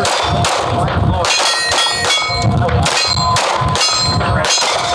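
A string of 9mm pistol shots from a Springfield Armory Hellcat Pro, two or three a second, with other guns firing along the line. Steel targets ring after the hits.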